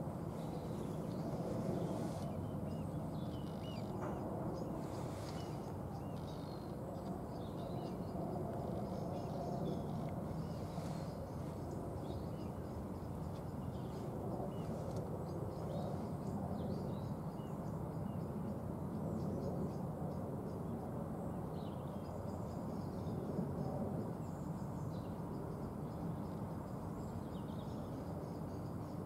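Steady low rumble with scattered short bird calls over it.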